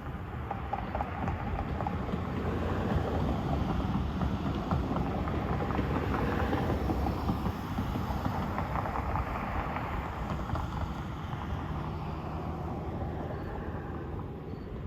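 A powered buffing wheel running against a pontoon boat's aluminum tube with metal polish, a steady whirring and rubbing noise that swells for several seconds in the middle and then eases.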